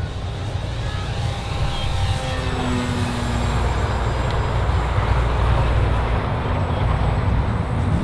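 Electric radio-control plane's motor and propeller whine passing by, the pitch falling over a couple of seconds as it goes past. Heavy wind rumble sits on the microphone underneath.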